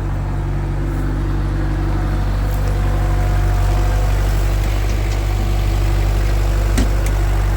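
Kubota F3060 tractor's diesel engine running steadily, growing slightly louder over the first few seconds.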